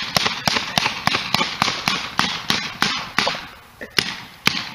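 Paintball gun firing in rapid succession, about four sharp shots a second, then slowing to a few scattered shots near the end.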